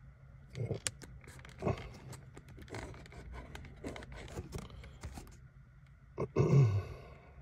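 Scratch-off lottery ticket being scratched, a run of short scraping strokes over a few seconds. Near the end comes a short low grunt from a man's voice, falling in pitch.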